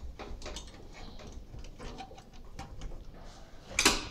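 Small metal clicks and taps as a steel bracket is handled and stood upright under a graphics card on the steel floor of a computer case, with one louder knock near the end.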